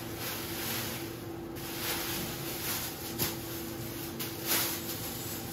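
A clear plastic bag crinkling and rustling as it is squeezed and handled, in a series of hissy bursts with a few sharper crackles.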